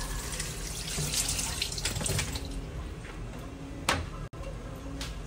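Wet, splashy liquid sounds with small clicks, dying away about two and a half seconds in, then a single sharp click near the end.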